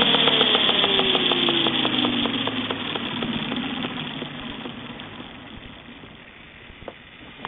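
A Blade 450 3D electric RC helicopter's brushless motor and rotor head spooling down on the ground after landing. A falling whine with a regular ticking that slows, both fading out over about five seconds.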